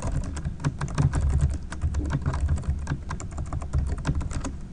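Computer keyboard typing: a fast, continuous run of keystrokes, several a second.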